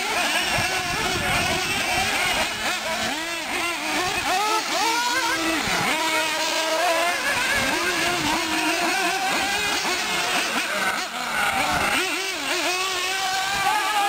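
Several 1/8-scale R/C buggies and short-course trucks racing on a dirt track, their motors overlapping and revving up and down as the cars accelerate and brake.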